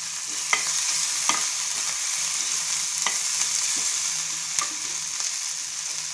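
Oil sizzling steadily in a small metal pan as ginger paste, curry leaves and dried red chillies fry, while a spoon stirs them and clicks against the pan about four times.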